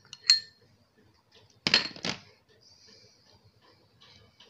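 A glass bowl clinking a couple of times against the plate as the green peas are tipped out of it, then two short, louder knocks about two seconds in.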